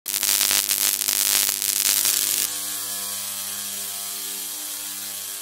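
Logo-intro sound effect: a loud mechanical rattling clatter lasting about two and a half seconds, then cutting off suddenly into a steady low drone that slowly fades.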